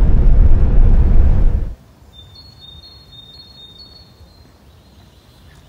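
A motorhome driving, with a loud, low road and engine rumble that cuts off suddenly under two seconds in. It gives way to a quiet outdoor background with faint, high-pitched chirping.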